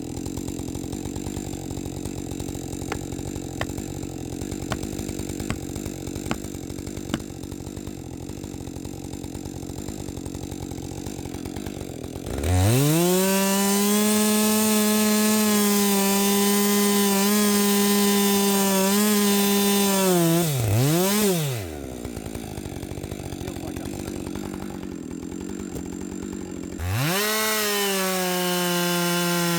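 Two-stroke chainsaw running at idle, then opened to full throttle about twelve seconds in and held for about eight seconds with small dips in pitch as it cuts through wood. It drops back to idle with one quick blip of the throttle, then revs up high again near the end.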